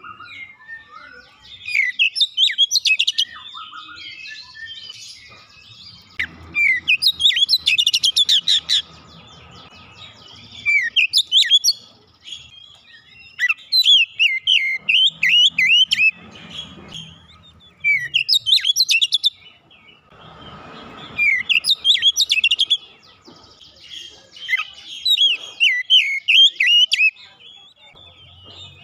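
Oriental magpie-robin (kacer) singing: repeated bursts of fast, varied whistled and chattering notes, a new phrase every two to four seconds.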